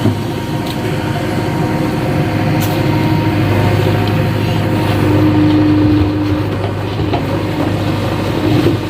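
JCB backhoe loader's diesel engine running steadily under work, getting a little louder for about a second around five seconds in.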